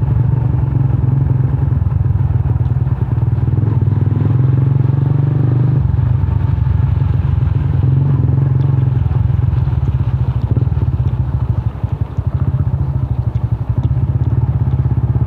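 Yamaha Sniper 150's single-cylinder four-stroke engine idling through its stock muffler, which has been hollowed out to make it louder. The exhaust is a loud, fast, even beat that wavers slightly about twelve seconds in.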